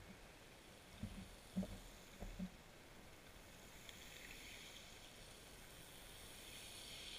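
Faint muffled underwater sound through a GoPro's waterproof housing. A few soft low knocks come in the first couple of seconds, then a faint hiss swells slightly toward the end.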